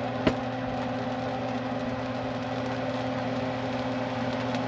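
Steady mechanical hum and whir, like a motor running, with one short tap about a third of a second in.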